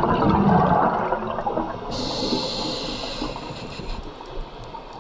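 Scuba regulator breathing heard underwater: a gurgling rush of exhaled bubbles, then a hissing inhale about two seconds in. After that the sound fades to a quieter bubbling.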